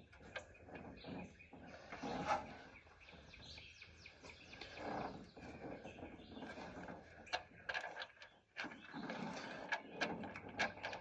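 Small clicks and handling noises as a new spark plug is worked by hand into its threaded hole in the engine, trying to catch the thread. Birds chirp in the background.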